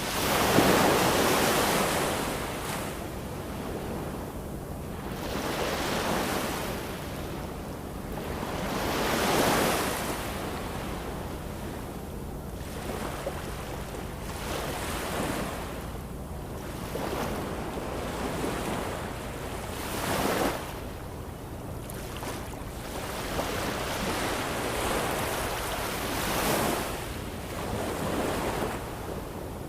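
Sea waves breaking and washing in, a continuous hiss that swells and fades every few seconds, the biggest wave about half a second in.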